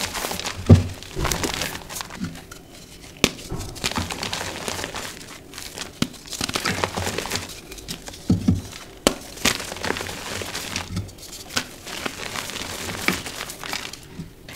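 Dyed gym chalk blocks crushed and crumbled by hand: dry, crunchy crumbling and crackling with irregular sharp snaps and a few dull thumps, the loudest about a second in.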